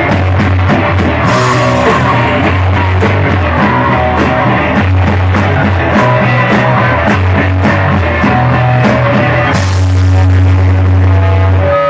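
Live punk rock band playing loud: full band sound with a heavy, steady bass line.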